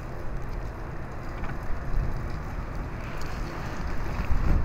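Wind buffeting the microphone: an uneven low rumble over steady outdoor noise.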